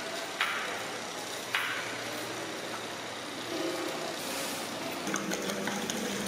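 Kitchen knife slicing tomatoes on a wooden chopping board, with two sharp knocks of the blade on the board about half a second and a second and a half in, over a steady mechanical hum. A steady low hum joins near the end.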